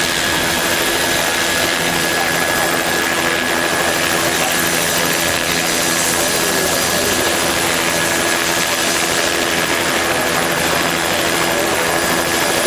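Turbine helicopter running close by: a steady engine whine over the rotor noise, with no change in pitch or loudness.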